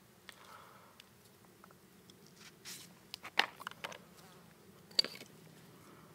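Light clicks and taps of wooden sticks and a potato being handled on a homemade wooden spiral potato cutter, scattered through the middle, with a fly buzzing faintly near the start and again near the end.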